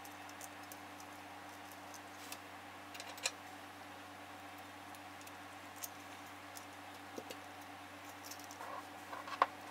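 Small scattered clicks and taps of plastic and metal parts as a speaker terminal block is handled and its pieces fitted back together, with a sharper click near the end. A steady faint hum lies underneath.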